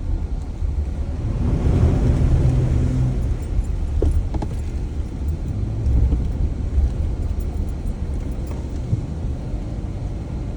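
Off-road vehicle driving on a rough dirt trail: a steady low engine and tyre rumble, with the engine pulling harder for a couple of seconds near the start.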